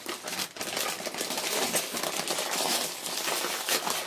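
Plastic chip bag of Takis crinkling and crackling without pause as it is worked open by hand.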